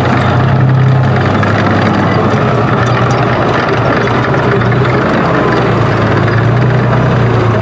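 WZT-2 armoured recovery vehicle driving across rough ground: its V-55 V12 diesel engine running under load with a steady, loud low drone, mixed with the noise of its tracks.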